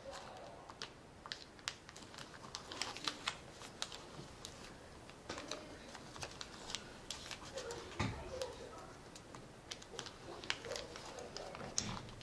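Sheet of origami paper being folded and pressed flat by hand: quick crisp crackles and clicks as the creases are made, with a low thump against the table about eight seconds in.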